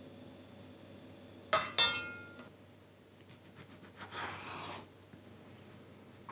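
A metal ladle clinks twice against a ceramic bowl, the second knock ringing briefly, as rice cakes are scooped in. About two seconds later a kitchen knife slices through raw bacon on a wooden cutting board with a second-long scraping sound.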